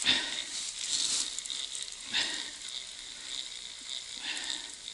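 Small ice-fishing rod and reel handled over the hole while the jig is let down on its line: short rustling, scraping noises, the first right at the start, then about a second in, a little after two seconds and again past four seconds, over a steady hiss.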